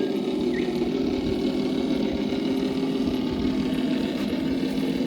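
A motor humming steadily at one constant pitch.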